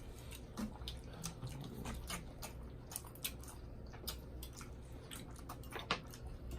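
Eating sounds: chewing with irregular small mouth clicks, a few each second.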